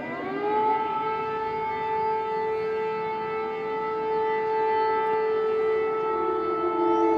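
Civil-defence air-raid siren wailing as a war-time alert: its pitch rises at the start, holds one long steady tone, and begins to fall again near the end.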